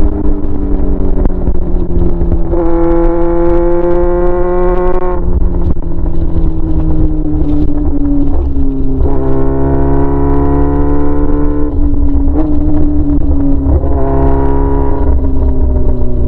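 Yamaha R6 inline-four running straight-piped with the muffler removed, loud and raw. Its steady drone swells into a brighter, slightly rising note three times, for a couple of seconds each, as the throttle is opened.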